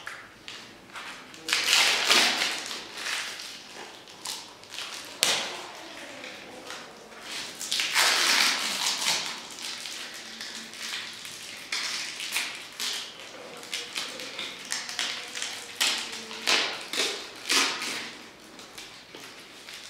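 Clear plastic film crinkling and rustling as gloved hands handle it, in irregular bursts, with a long stretch of quick short crinkles near the end.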